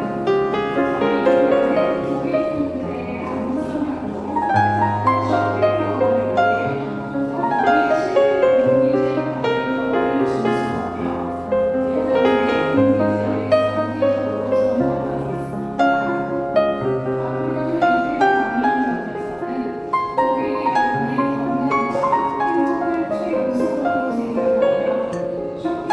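Background music: a gentle instrumental piece with piano-like melody over sustained bass notes.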